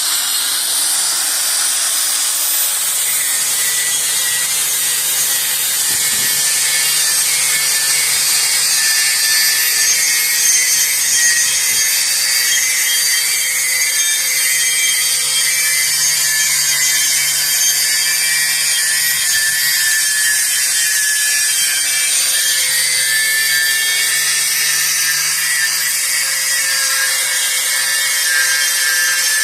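Electric sanding tool running steadily, sanding the metal inside of a kettle-corn kettle, with a high hiss of abrasive against metal over an even motor hum.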